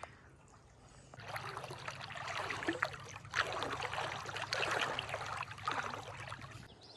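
Creek water running and splashing over rocks, starting abruptly about a second in and cutting off just before the end.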